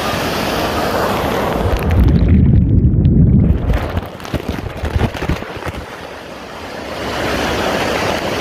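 Dunn's River Falls cascading over rock right at the microphone, a loud rushing hiss of pouring water. About two seconds in, the sound turns to a muffled low rumble as water washes over the microphone. It stays dull for a few seconds, and the full rushing comes back near the end.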